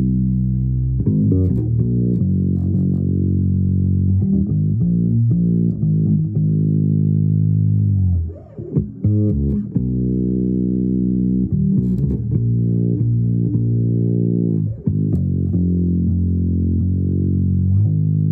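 Improvised music on a bass guitar: low plucked notes that ring on and change every second or two, with a brief break about halfway through.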